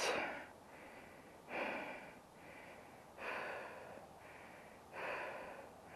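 A man breathing hard: four louder breaths, about one every second and a half to two seconds, with fainter breaths between.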